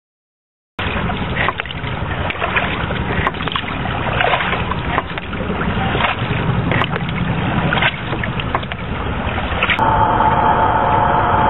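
Home-built plywood outrigger canoe being paddled on the sea: water rushing and splashing, low wind rumble and occasional sharp knocks. Near the end this cuts to a steady whining tone.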